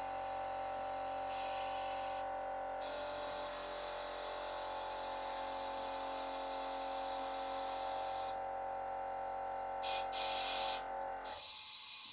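A small 12-volt air compressor on an air-operated plow runs steadily while the blade's air valves hiss on and off in several bursts as the air cylinders move the blade. The compressor is recharging the plow's air tank, and it cuts off about eleven seconds in.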